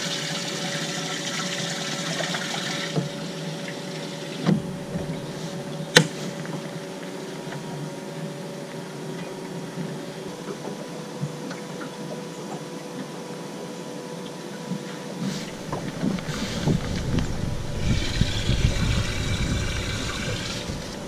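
Bass boat livewell with its water pump running: a steady hum under splashing, gurgling water. There are two sharp knocks about four and six seconds in.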